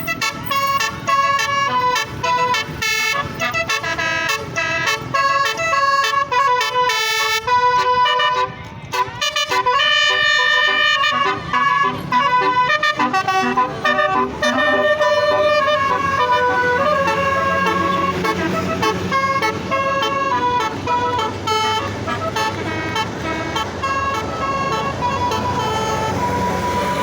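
Bus's multi-tone 'telolet' musical air horn (a Basuri horn) playing quick runs of stepped notes, tune after tune. About halfway through, a steady low rumble joins beneath it.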